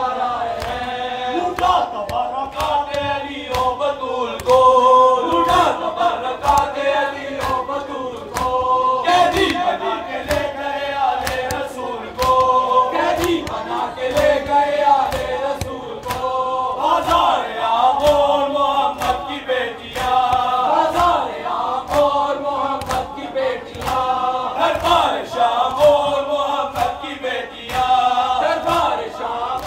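A group of men chanting a noha, a Shia mourning elegy, in unison, over a steady beat of hand slaps from matam, the ritual chest-beating, about once a second.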